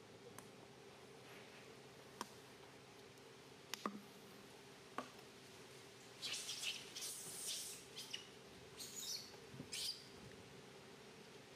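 Baby long-tailed macaque giving a run of short, high-pitched squealing cries from about six to ten seconds in, after a few sharp clicks.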